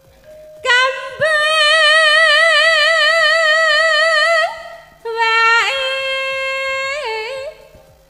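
A woman singing unaccompanied into a microphone in Javanese sinden style: one long high note held with a wide, even vibrato, then a shorter, lower phrase with quick ornamental turns.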